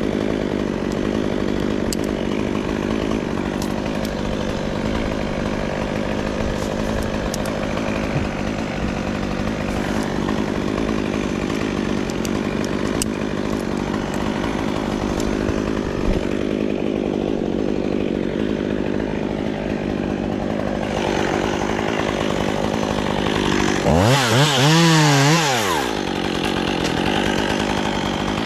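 Chainsaw running at a steady idle, then revved up and down quickly several times for about two seconds near the end.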